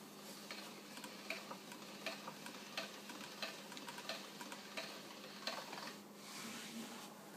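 Hand-cranked Atlas pasta machine turning as a sheet of dough is fed through its rollers: faint, regular clicking, about one click every two-thirds of a second, with a brief soft rustle near the end.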